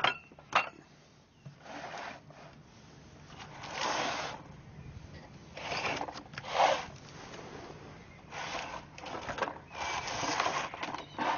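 Two sharp knocks near the start as a metal muffin tin is set down, then scraping and rustling several times as a cardboard tray of orgonite pucks is pushed and slid across wooden deck tiles.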